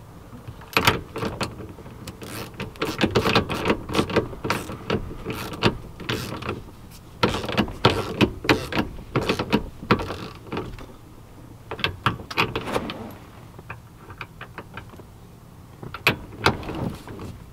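Hand ratchet with a 21 mm socket clicking in runs of quick ticks, with short pauses between strokes, as it tightens the steering wheel's retaining nut onto the steering shaft. The clicking thins out after about thirteen seconds, and a few more clicks come near the end.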